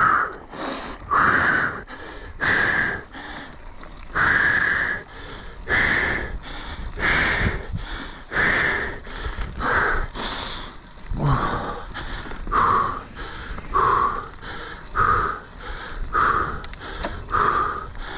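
Mountain biker breathing hard from exertion: loud, regular heavy breaths close to the mic, about one every second and a quarter.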